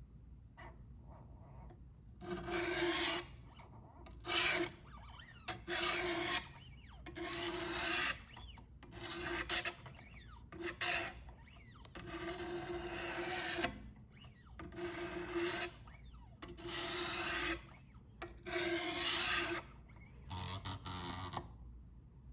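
Wicked Edge guided-rod sharpener's new stones stroked along the edge of a very dull kitchen knife, about ten scraping strokes of roughly a second each with short pauses. This is the slow first work of raising a burr on the blade while the new stones break in.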